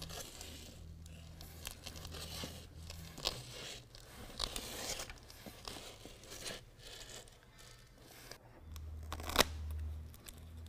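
Hook-and-loop (Velcro) strip rasping and crackling as it is pressed onto and run along the stitched-in Velcro of a carpet bed liner, then a sharp snip of scissors cutting the strip near the end.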